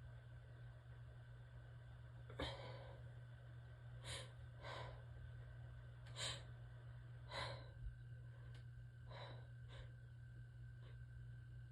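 A person's short, breathy sniffs and breaths, about nine of them spaced a second or so apart, the sharpest one about two and a half seconds in.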